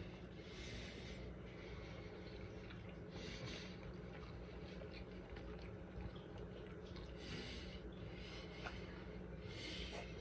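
A person breathing out through the nose while eating: four soft breaths a few seconds apart, over a steady low hum.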